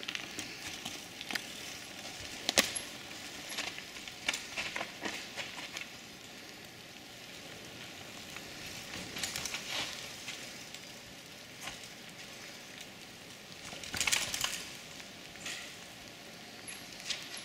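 Mountain bikes riding a dirt forest singletrack: tyres crunching and rolling over the trail, with scattered clicks and rattles from the bikes and a few louder bursts of rattle, the biggest about two and a half and fourteen seconds in.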